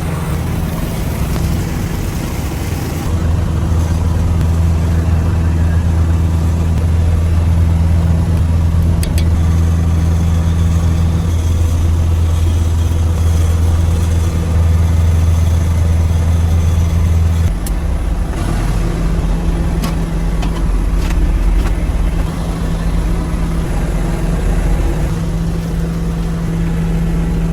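Boat engine running with a steady low drone; about two-thirds of the way through the drone shifts lower.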